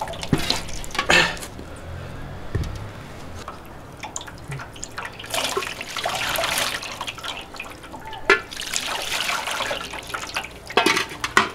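Water poured from a steel pot over a stone cooking pot and its lid, splashing and dripping into a metal basin as the stone pot is rinsed. There are two longer spells of pouring and a few sharp knocks as the pot and lid are handled.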